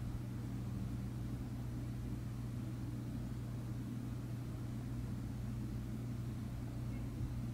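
Steady low hum of background room noise, with no distinct events.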